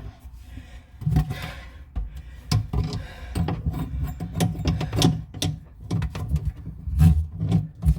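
Irregular knocks, clicks and rubbing of hands and tools working in a wooden bathroom vanity cabinet, tightening a new sink faucet into place.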